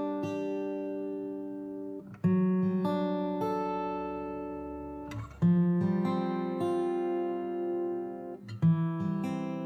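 Background music of plucked acoustic guitar: chords struck every few seconds, each ringing on and fading.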